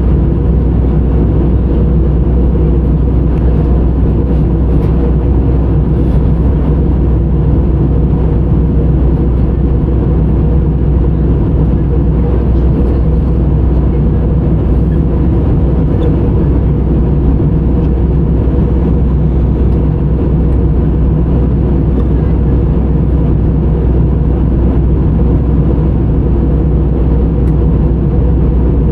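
Steady drone of an airliner's jet engines and airflow heard inside the passenger cabin, loud and unchanging, with a low hum and several steady tones beneath a rushing noise.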